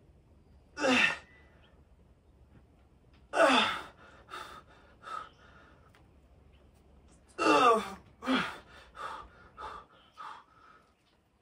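A man's strained grunts and gasping breaths of effort during a seated overhead dumbbell tricep extension set, one burst per rep. There are three loud ones, each followed by shorter, quicker ones, and they come faster near the end as the set gets harder.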